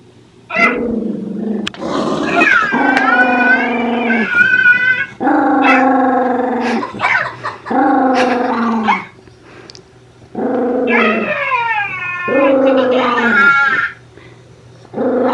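A poodle "talking": a string of long, wavering grumbling howls, each a second or two long, sliding up and down in pitch, with short pauses between them.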